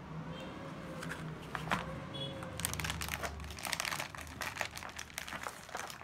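Packaging crinkling and rustling while a new motherboard is unpacked from its box, with dense crackling from about halfway through.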